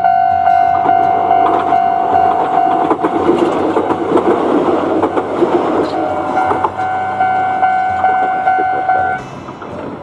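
Japanese level-crossing alarm ringing steadily while a Kintetsu Gose Line train passes over the crossing, its wheels and running gear rumbling for a few seconds in the middle. The alarm cuts off near the end as the barriers lift.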